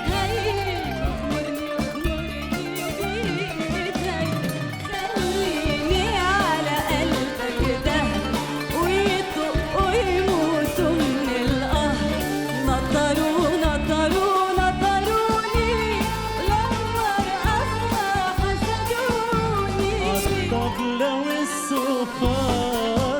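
A singer performing an Arabic song with winding, ornamented vocal lines over band accompaniment with a steady beat.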